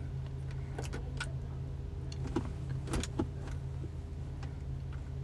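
A few light metallic clicks and taps as the ABS module and its mounting bracket are handled and set into place, over a steady low hum.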